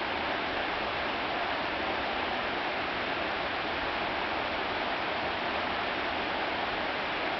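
Steady rush of a creek's flowing water, even and unbroken.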